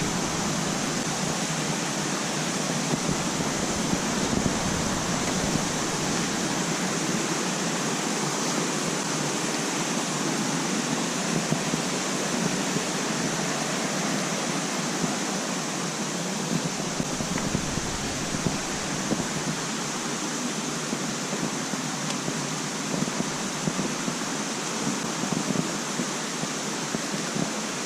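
Steady, unbroken rush of water falling at the Bigăr waterfall.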